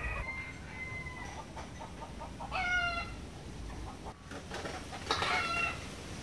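Chickens calling: two short, pitched calls, one about two and a half seconds in and one about five seconds in.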